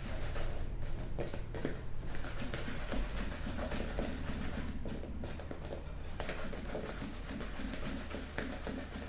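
Fried bolinhos de chuva being stirred and tossed in a bowl of sugar and cinnamon: a continuous gritty rustling and scraping with small knocks, as the dough balls roll through the sugar until it sticks.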